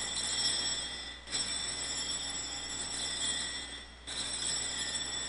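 Altar bells (Sanctus bells), a cluster of small bells shaken in a steady jingling peal. It breaks off and is rung again about a second in and about four seconds in, marking the elevation of the chalice at the consecration.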